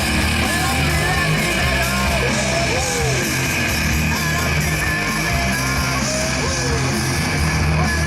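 Loud rock music with a steady bass line and gliding guitar or vocal lines.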